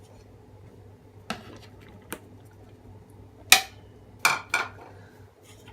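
Kitchen utensils and a mixing bowl knocking together: about five short clinks and taps, the loudest about three and a half seconds in, followed by two more in quick succession.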